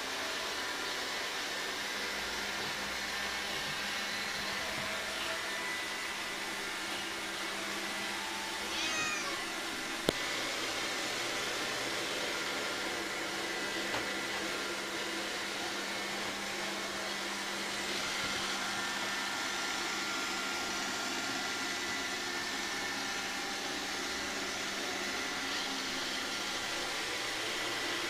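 Roomba robot vacuum running with a steady whirring hum. About nine seconds in a cat gives one meow, followed by a single sharp click.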